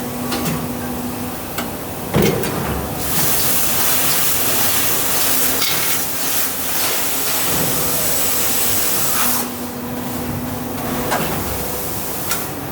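DC350 die-casting machine working through its cycle: a metallic clank about two seconds in, then a loud spraying hiss for about six seconds that cuts off suddenly, typical of release agent being sprayed onto the open die. A steady hum from the machine runs underneath.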